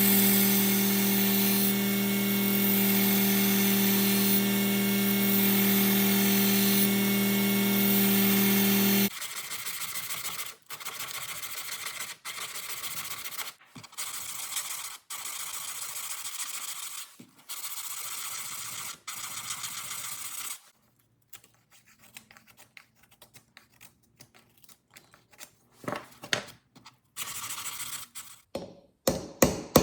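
A power tool runs steadily with a hum and hiss for about nine seconds, then stops. It is followed by a dozen or so rubbing strokes on steel, each about a second long. Light taps come near the end.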